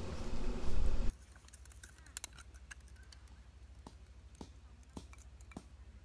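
About a second of loud rushing noise with a low rumble that cuts off abruptly. Then a faint low hum and a few light, scattered clicks and taps as food is set down on a wooden serving board.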